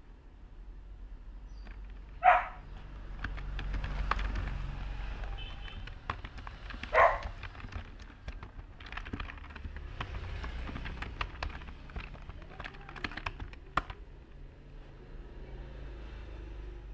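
Computer keyboard typing in short runs of clicks. A dog barks twice in the background, about two seconds in and again about seven seconds in; these barks are the loudest sounds. A low rumble rises and falls under it.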